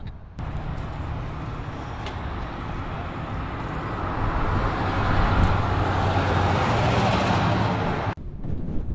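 Pontiac V8 engine running at a steady idle with a low rumble, growing louder about halfway through.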